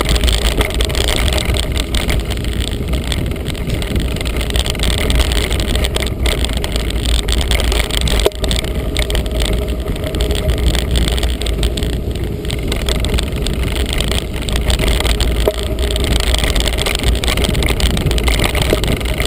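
Felt Edict Elite mountain bike rolling along a rough gravel track: a steady rushing rumble of tyres and moving air on the camera, with many small rattles and knocks from the bike over the stones.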